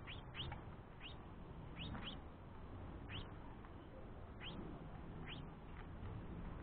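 House finch chirps, a fledgling begging from the male: short, high chirps that each drop in pitch, a dozen or so at uneven intervals.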